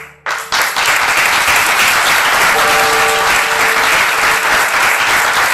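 Audience applauding loudly, starting about half a second in and going on steadily.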